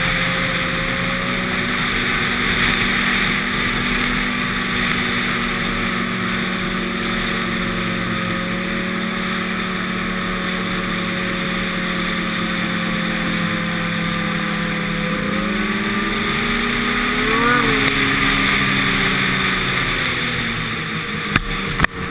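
Snowmobile engine running steadily at trail speed. About two thirds of the way in its note shifts, then briefly rises and falls as the throttle is blipped; a few sharp knocks come near the end.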